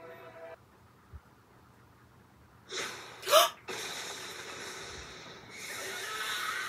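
Music cuts off about half a second in; after a near-quiet stretch, a woman's sharp shocked gasp, rising in pitch, comes a little over three seconds in and is the loudest sound. A steady rushing noise follows.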